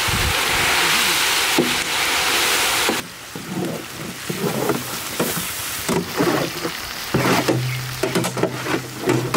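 Loud, steady sizzling hiss as wet boiled noodles are tipped into a large pan of hot oil and onions, cut off abruptly about three seconds in; background music follows.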